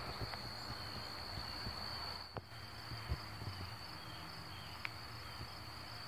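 Faint outdoor ambience: a steady, high-pitched insect drone over a low, uneven rumble.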